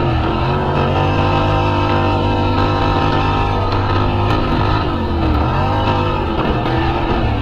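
Racing lawnmower engines running hard, their pitch dipping and then climbing again about five to six seconds in as they ease off and accelerate.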